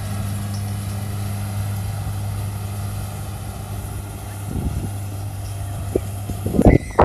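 Kubota rice combine harvester's engine running steadily under load, a constant low drone. A sudden loud noise breaks in just before the end.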